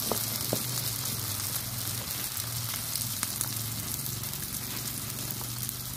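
A batter-coated fritter of small freshwater shrimp frying in hot oil in a pan: a steady sizzle and crackle with a few sharp pops. A faint steady low hum runs underneath.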